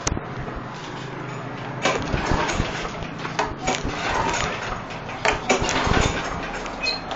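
Briggs & Stratton lawn mower engine being pull-started by its recoil cord, turning over in several uneven pulls without catching and running.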